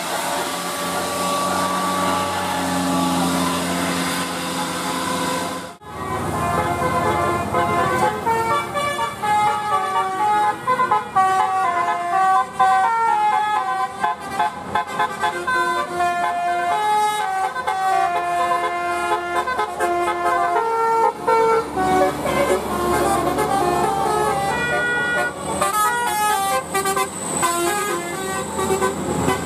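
Indonesian bus 'telolet' horn: a set of tuned air horns playing a fast, stepping melody of short notes in several voices at once, starting about six seconds in. Before that, road traffic noise.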